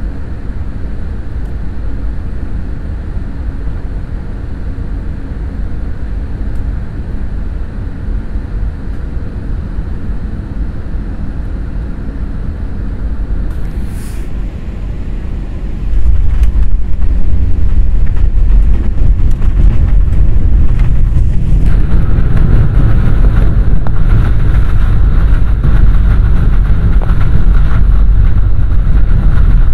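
Airbus A320 cabin noise during landing: a steady engine and airflow rush, then a sudden, much louder low rumble about sixteen seconds in as the wheels touch down and the airliner rolls along the runway, with a steady engine tone rising over it about six seconds later.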